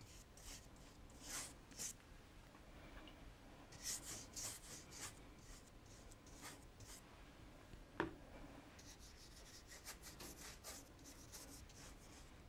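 Large pointed watercolour brush stroked across rough watercolour paper, wetting it with clean water: faint brushing strokes in short runs, with one sharp tick about eight seconds in.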